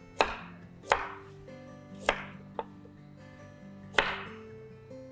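Kitchen knife cutting a carrot into small cubes: about five separate, unevenly spaced chops.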